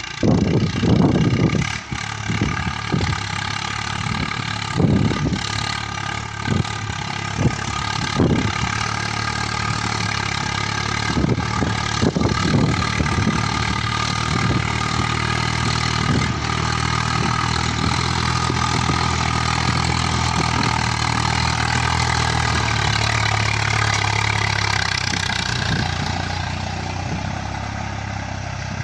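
Swaraj 855 FE tractor's three-cylinder diesel engine running steadily under load as it pulls a cultivator through the soil. Irregular low thumps come through in the first dozen seconds.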